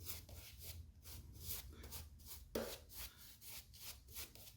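Synthetic shaving brush swishing through soap lather in quick, even strokes, about four or five a second, with one louder knock about two and a half seconds in.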